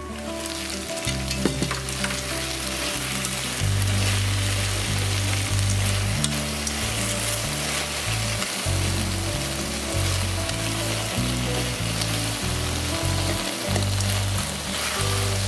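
Eggplant and chicken pieces sizzling in a frying pan as the sauce reduces, turned with wooden chopsticks. The sizzle grows louder once the pan's lid comes off at the start.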